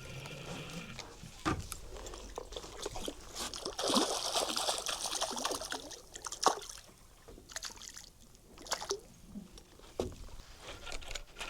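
Water splashing and trickling with scattered sharp knocks as a hooked mackerel is brought up out of the sea. The splashing swells about four seconds in.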